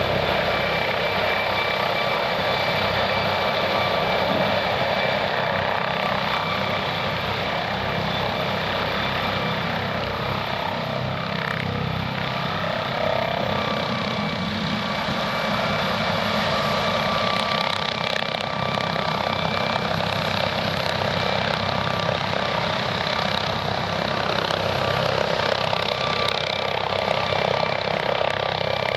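MD 902 Explorer helicopter running steadily, its twin turbine engines giving a steady high whine over the rotor and engine noise.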